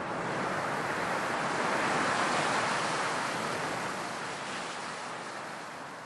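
A single gust of wind: a rushing hiss that swells to a peak about two seconds in and then slowly fades away.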